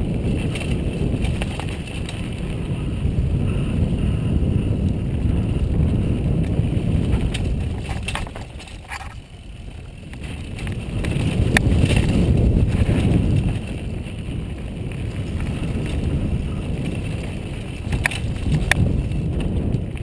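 Mountain bike descending a dirt singletrack: tyre rumble and wind buffeting a helmet-mounted camera's microphone, swelling and easing with speed. Sharp clicks and rattles from the bike come through now and then, two close together near the end.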